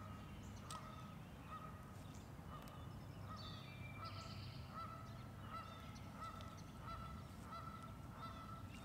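Faint animal calls: a long run of short repeated calls at one pitch, two or three a second, with higher bird chirps scattered over them.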